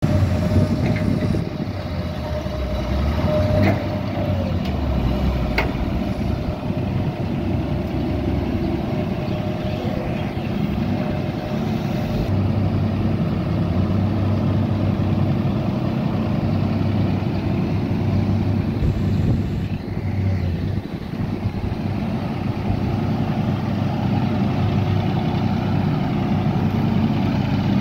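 Komatsu PC200 excavator's six-cylinder diesel engine running steadily. Two brief sharp knocks come a few seconds in.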